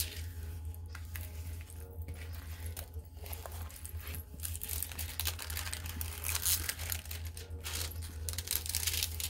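Clear plastic packaging crinkling and rustling in irregular bursts as a diamond painting kit is handled, over a steady low hum.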